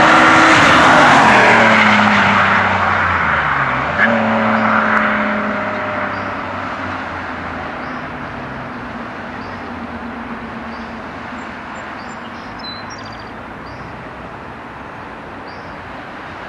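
BMW E46 M3's S54 straight-six engine through a Supersprint race exhaust, loud at first as the car goes by, its note falling over the first few seconds. A sharp crack about four seconds in, then a short pull on a higher note before the sound fades steadily away.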